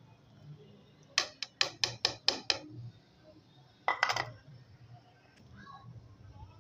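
A metal utensil knocking against a cooking pot: a quick run of about seven sharp taps, then a short clatter about four seconds in.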